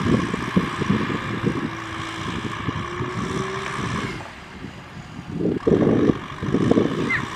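Kubota M6040SU tractor's four-cylinder diesel engine running as it pulls a loaded trailer, a rough low rumble that swells louder about five and a half seconds in as the tractor comes close.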